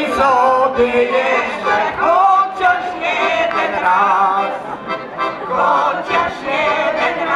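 A folk singing group of women's voices, with a man among them, singing a Polish folk song together in phrases, accompanied by an accordion.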